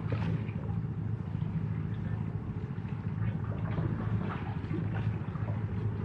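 Small sea waves splashing and lapping over a steady low engine hum.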